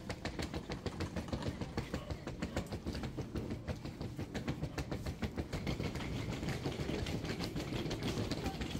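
Suitcase wheels rolling over brick paving, a fast continuous clatter as they cross the joints between the bricks.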